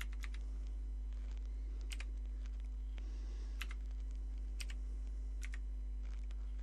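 Keys of a clicky mechanical computer keyboard being pressed one at a time, each keystroke a sharp double click, about one a second, over a steady low electrical hum.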